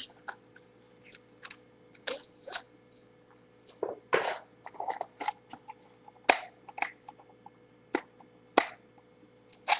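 Hands handling and opening sealed trading-card packaging, small cardboard mini boxes and foil packs. It gives irregular sharp clicks, snaps and short crinkles, about a dozen, spaced unevenly with brief quiet gaps.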